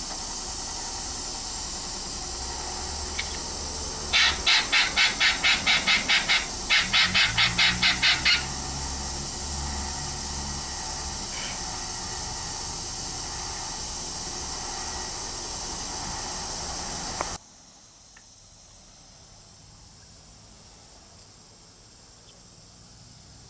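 Running water for a pet bird's bath, a steady hiss that stops suddenly about 17 seconds in. Partway through, two quick runs of loud, evenly spaced pulses, about three a second, stand out over the water.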